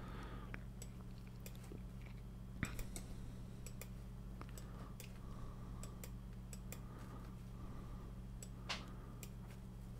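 Faint computer-mouse clicks, a dozen or so at uneven intervals, over a steady low hum.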